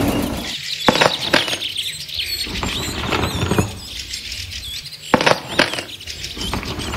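An engine-like drone fades out about half a second in, followed by a string of irregular sharp clicks and taps, about seven in all, with faint high chirps above them.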